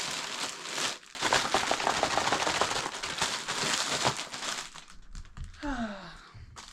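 Parcel packaging crinkling and rustling as it is handled and unwrapped, dense for the first four or five seconds, then quieter, with a short falling vocal sound near the end.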